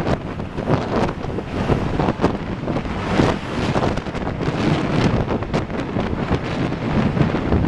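Wind buffeting the microphone of a camera moving along a city street, with irregular gusts and thumps over the low rumble of traffic.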